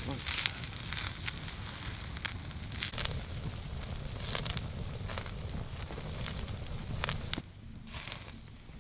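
Open wood campfire crackling, with sharp pops scattered through; it drops quieter about seven seconds in.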